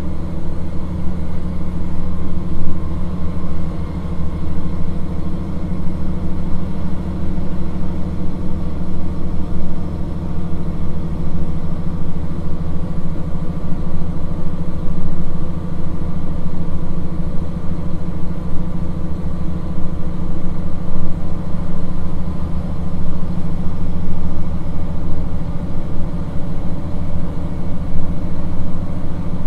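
KiHa 40 series 1700-subseries diesel railcar running, heard from inside the car: the diesel engine drones steadily at one speed under a constant rumble of running noise.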